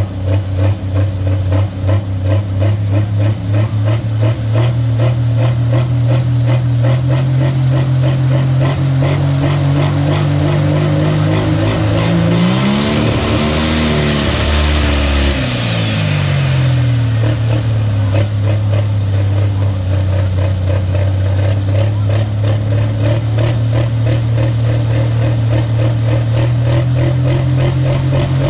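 Pulling tractor's diesel engine running at a steady high idle, revving up once about twelve seconds in and falling back to idle about five seconds later, blowing black smoke as it revs.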